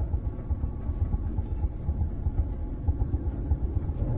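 Low, steady rumble filling the gap between lines: the background drone of a TV drama's soundtrack.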